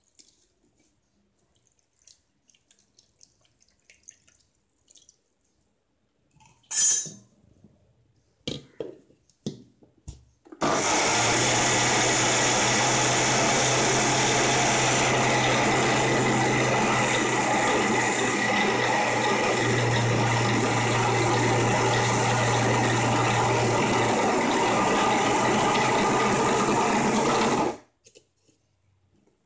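Indian mixer grinder (mixie) running steadily for about seventeen seconds, wet-grinding soaked idli rice and red chillies with water into coarse adai batter; it starts about ten seconds in and stops suddenly near the end. Before it starts, a few short clinks and knocks as the steel jar is handled.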